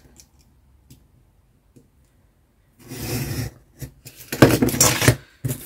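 Craft knife blade drawn along a metal ruler, cutting through Christmas-card stock in two scraping strokes, about three and four and a half seconds in, after a few quiet seconds of small handling ticks.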